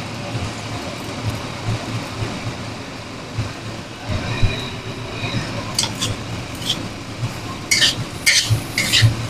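Metal spatula scraping and knocking against a wok while stir-frying fried rice, the strokes coming several times in the second half, over a steady low rumble.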